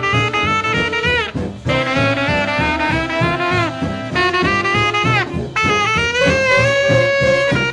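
Swing jazz music: a horn section of saxophones and brass plays held notes, several of them ending in a falling slide, over a steady bass and drum beat.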